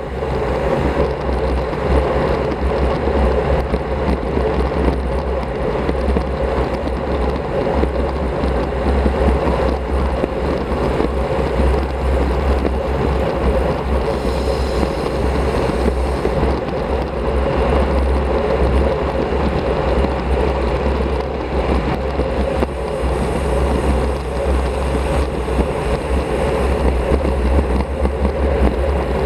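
Wind buffeting the action camera's microphone on a road bicycle ridden at speed: a constant low rumble with rushing air and road noise, steady throughout.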